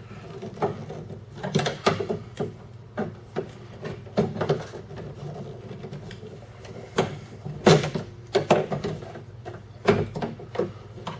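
Clip tool prying and scraping at the door handle and lock rod clips inside a 1998 Chevy pickup's steel door: an irregular run of clicks, knocks and rattles, with a steady low hum underneath.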